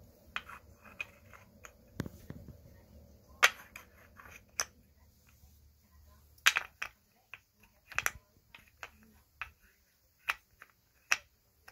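Wooden shape pieces clacking against each other and against the wooden pegs and base of a shape-sorting stacker board as a toddler fits them on: a string of sharp, irregularly spaced clacks.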